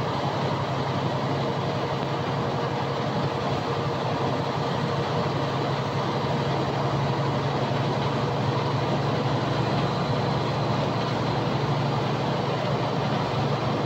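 Steady engine drone and road noise heard inside the cab of a truck driving down the road.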